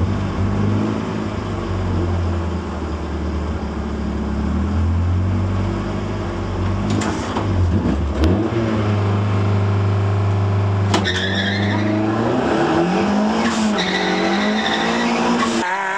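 Opel Corsa A GSi engine running under load with a steady drone, then climbing in pitch as it revs up from about twelve seconds in. A few sharp clicks come through in the middle.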